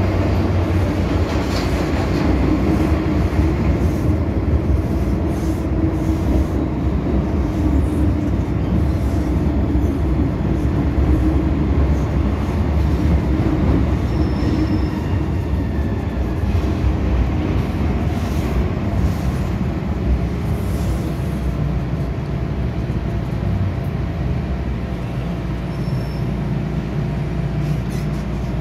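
Inside a moving MTR M-Train subway car: the steady rumble of wheels on rail and the running gear, easing off a little near the end as the train slows.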